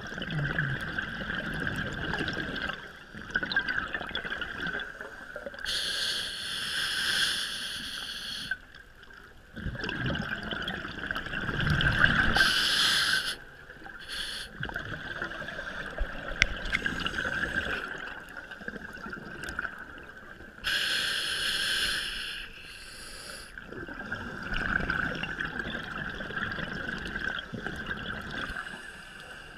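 Scuba diver breathing through a regulator underwater: a hissing inhale every several seconds, alternating with the bubbling, gurgling rumble of exhaled air.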